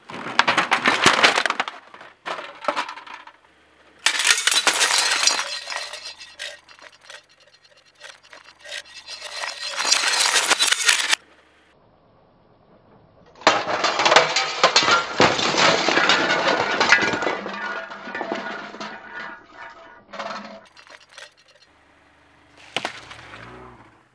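A car tyre rolling over and crushing objects one after another, including a metal tin and a metal bottle: crunching, crackling and clinking as the metal buckles and flattens. The sound comes in several long separate bursts, with a short crunch near the end.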